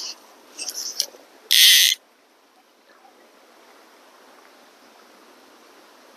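Fly reel's click drag buzzing as line is pulled off in short pulls, the last, about a second and a half in, the loudest and longest. After that only the faint steady murmur of a shallow stream.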